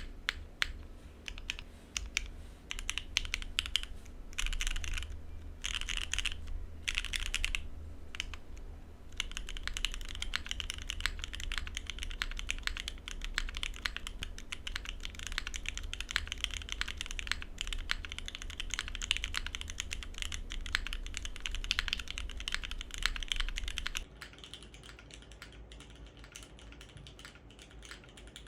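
Typing on a Salvation 60 mechanical keyboard with Gateron Oil King linear switches, GMK Katakana keycaps and an aluminium plate, no foam: fast, dense key clacks, first in short bursts and then unbroken. Near the end the typing turns quieter.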